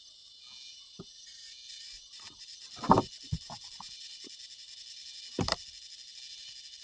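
A series of sharp knocks and thumps, the loudest about three seconds in and another about five and a half seconds in, over a steady high-pitched insect buzz.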